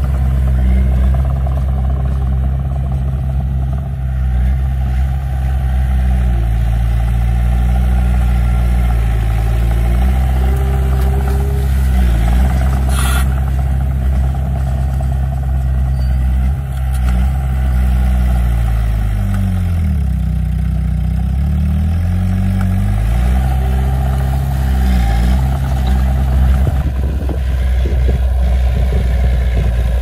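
Small crawler bulldozer's diesel engine running hard as it pushes dirt, its pitch dipping and recovering several times under load, with one sharp clank about 13 seconds in.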